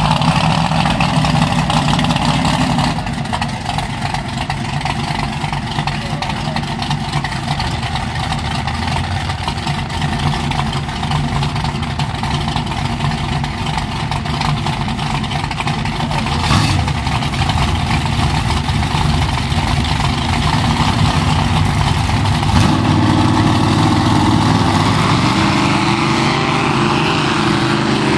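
Lifted mud trucks' V8-type engines running and revving under load as a stuck pickup is pulled out of the mud on a tow strap, the engine pitch rising in steps over the last few seconds.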